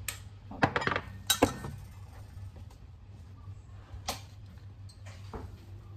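A glass spice jar clinking as it is shaken over a plate of panko breadcrumbs and handled, with several sharp clinks in the first second and a half and a couple of lighter knocks later. A steady low hum runs underneath.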